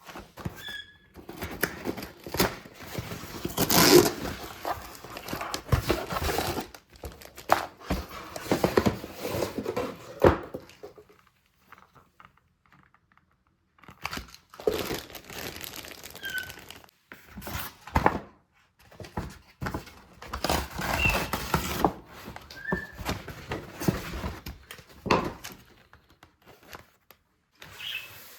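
Close-up handling sounds: irregular crinkling and rustling of paper or plastic with occasional soft knocks, and a quiet stretch about twelve seconds in.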